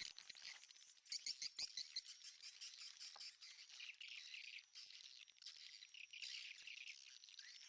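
Faint, dense twittering and chirping of swiftlets in a nesting room, with a quick run of sharp clicks between about one and two seconds in.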